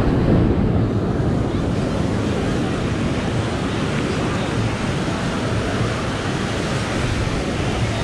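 Ocean surf washing onto a sandy beach, a steady wash of noise, with wind on the microphone.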